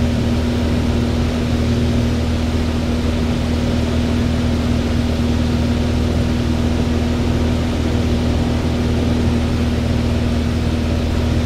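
Van's RV light aircraft's engine and propeller droning steadily in level cruising flight, heard inside the cockpit, with a strong steady hum that does not change.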